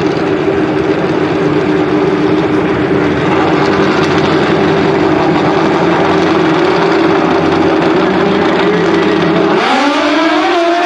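Two Pro Nitrous drag-racing motorcycles held at steady revs on the starting line, then launching about a second before the end, their engine note rising sharply as they pull away.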